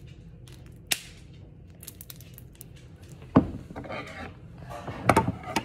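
Handling noises on a wooden tabletop: a sharp click about a second in, then a loud thump a little past three seconds, followed by a run of knocks and rubbing as things are moved about on the table.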